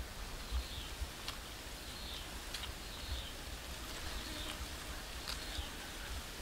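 A person chewing grilled pork ribs, with a few sharp clicks from the mouth. Behind it, a high chirping call repeats about once a second.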